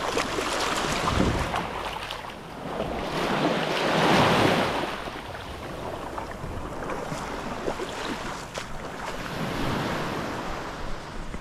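Small surf waves washing in and out over the shallows, swelling loudest about four seconds in, with wind buffeting the microphone.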